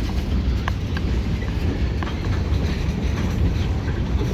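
Freight cars of a switching cut rolling past on the rails: a steady low rumble, with a few faint clicks and squeaks from the wheels.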